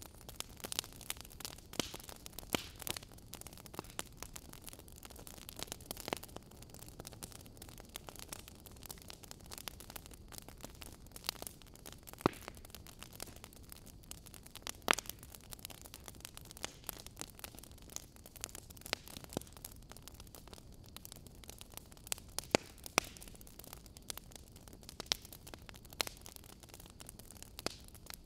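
Faint steady hiss with a low hum, broken by irregular sharp crackles and clicks, a handful of them much louder than the rest.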